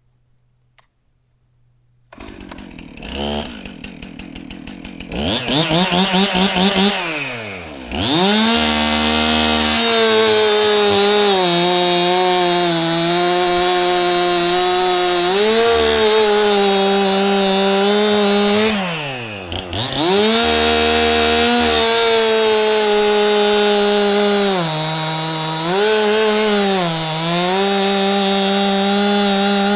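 Chainsaw starting about two seconds in, revving, then running at full throttle through two long cuts, its pitch sagging briefly under load and dropping back once between the cuts. It is a test of a freshly sharpened 20-inch chain.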